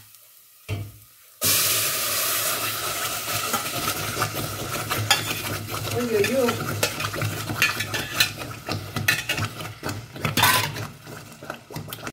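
Pumpkin puree poured into a stainless steel pot of garlic, onion and ginger frying in oil sets off a sudden loud sizzle and spatter about a second and a half in, which goes on with clicks of the spoon against the pot. The hob is on high and the puree still hot, so the puree spits.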